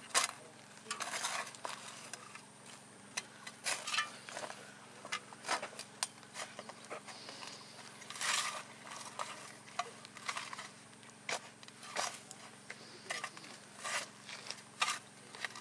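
Two metal spades digging open a grassy earth burial mound: sharp chops of the blades into the soil at an irregular pace, with longer scrapes as clods are levered up and thrown aside.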